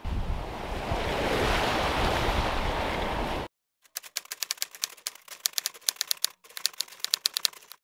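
Steady rush of wind and sea noise on an open sailboat deck that cuts off suddenly after about three and a half seconds. It is followed by a quick, irregular run of typewriter key clicks, a typing sound effect for text appearing letter by letter.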